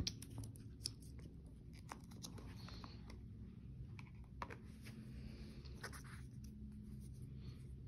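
Faint unboxing handling noise: scattered small clicks and brief light rustles of cardboard and paper as a new phone and its paper document sleeve are lifted out of the box.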